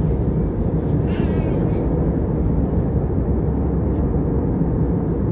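Steady low cabin rumble of an Airbus A320: engine and airflow noise. Faint voices come through about a second in.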